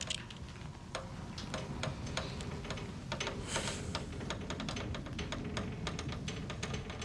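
Fire crackling: irregular sharp crackles and pops, several a second, over a low steady rumble.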